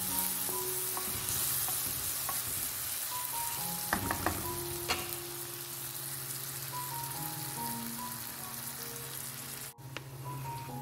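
Chopped onion and tomato sizzling as they sauté in oil in a non-stick pan, stirred with a wooden spatula that knocks against the pan a few times about four seconds in.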